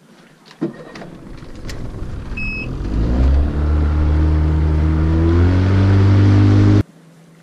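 A small boat's outboard motor throttled up after a knock about half a second in: the engine sound grows louder and rises in pitch over a few seconds, then holds steady at running speed before cutting off abruptly near the end.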